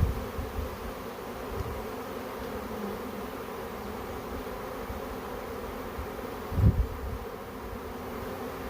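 Honey bee swarm buzzing, a steady dense hum of many wings. A low thump comes about two-thirds of the way through.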